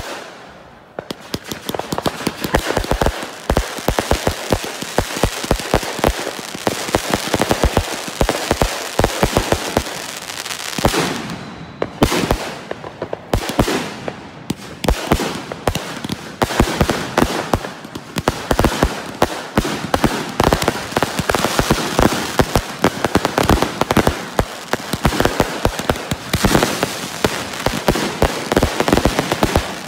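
Consumer firework cakes firing a dense, continuous barrage of sharp shots and aerial bangs, many per second. There are brief lulls about a second in and again around twelve seconds in.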